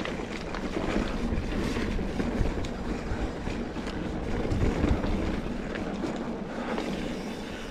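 Wind buffeting the microphone over the rumble of a mountain bike rolling along a dirt trail, with scattered small clicks and rattles.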